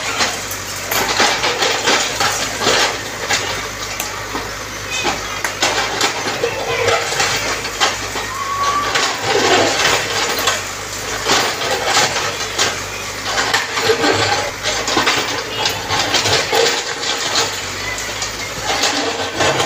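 Caterpillar backhoe loader's bucket knocking down a brick building: bricks and rubble crash and clatter down in frequent irregular impacts over the steady running of the machine's diesel engine.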